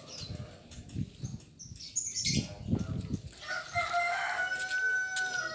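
A rooster crowing once, a long steady call in the second half, after a few low thuds and a brief high bird chirp.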